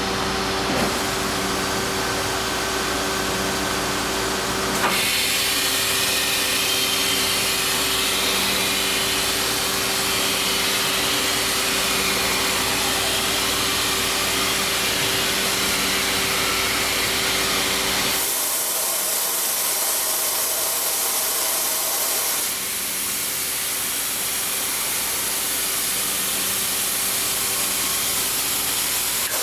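Guild International MEL laser coil-joining welder running: a steady machine hum with a loud hiss that comes in suddenly about five seconds in. Near the middle the low hum drops away for a few seconds, then returns under the hiss.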